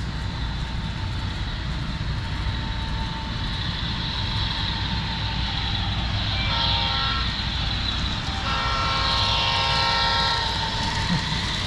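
A model diesel locomotive's onboard sound unit blows its horn twice, a short blast then a longer one, over the steady running hum of the model train on the layout.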